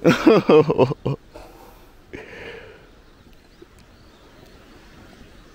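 A man's voice calls out loudly for about a second at the start. About two seconds in comes a short breathy hiss, and then only faint open-air background remains.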